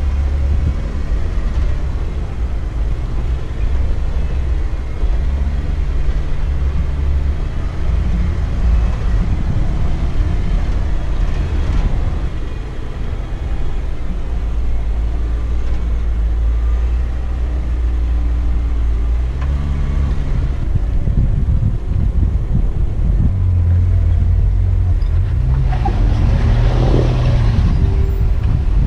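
Off-road Jeep's engine running as it crawls along the trail, with a heavy low rumble that shifts in pitch as the throttle changes. A brief rushing hiss rises near the end.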